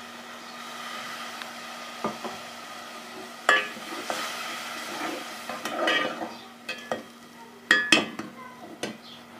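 Onion, tomato and spice masala frying in ghee with a steady sizzle, stirred with a metal spatula that now and then scrapes and knocks against the pot, loudest about three and a half and eight seconds in. This is the bhuna stage, the masala being fried down with a splash of water until the ghee separates.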